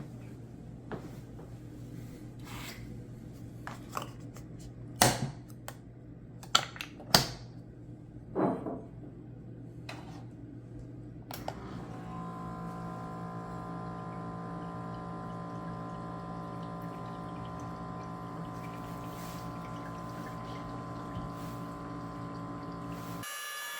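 Knocks and clicks as the Keurig K-Mini is handled and loaded. From about halfway its pump runs steadily with a hum, brewing coffee that streams into the cup. The sound changes just before the end.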